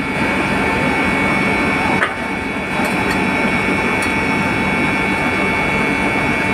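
Steady drone of running machinery: a broad hum with several constant whining tones over it, and a few faint clicks about two, three and four seconds in.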